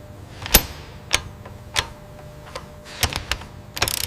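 Sharp mechanical clicks and knocks at irregular intervals, about eight in all, with a quick flurry near the end, over a steady low hum.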